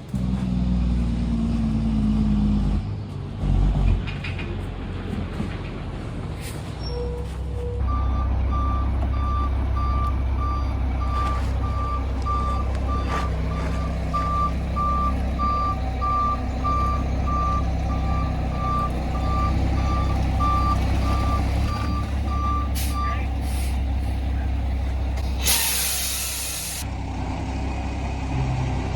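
A stone delivery truck's engine running as it backs up, its reversing alarm beeping steadily for about fifteen seconds, followed near the end by a short burst of air-brake hiss.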